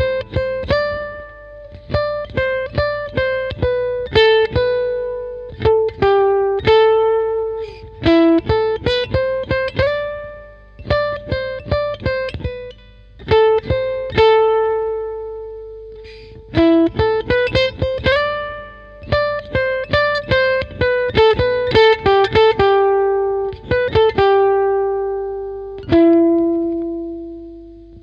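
Background music: a guitar plays a single-note melody, each note plucked and left to ring out, in short phrases separated by brief pauses and a few long held notes.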